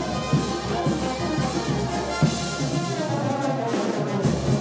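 Brass band music with trumpets and trombones playing a melody over a steady beat of about two strokes a second.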